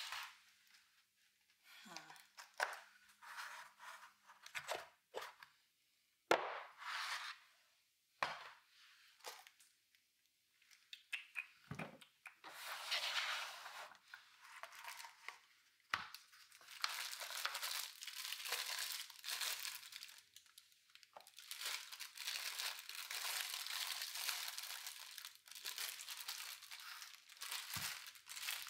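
Handling of a round brie box, with a few light knocks and taps, then the cheese's paper-and-foil wrapper crinkling and rustling in long stretches as the wheel of brie is unwrapped.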